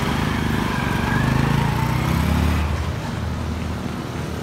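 A motor vehicle engine running steadily, a low hum that drops slightly in level just before three seconds in.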